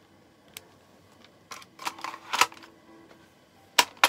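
Airsoft pistol pushed into a vacuum-moulded kydex holster: a scraping rustle of plastic around the middle, then two sharp clicks near the end as it snaps into the holster's retention.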